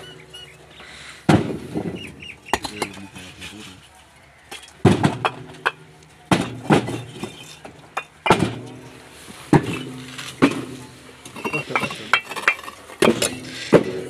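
Kiln-fired clay bricks being stacked by hand, clinking and knocking against one another in sharp clacks, roughly one a second at irregular spacing, each with a brief ring.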